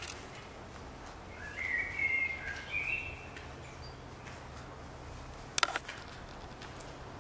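Birdsong: a short warbling, chirping phrase about a second and a half in, over a low steady hum. A single sharp knock near the end is the loudest sound.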